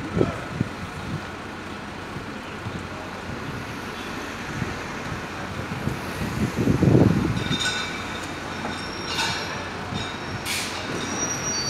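City street traffic noise, a louder low rumble of a passing vehicle about seven seconds in, then high brake-like squealing with a few short hissing bursts near the end.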